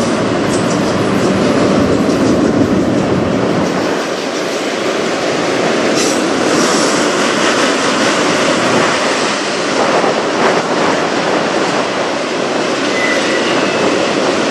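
Freight train's autorack cars rolling past below, a steady rumble of steel wheels on rail with a few sharper clacks over rail joints about six and ten seconds in.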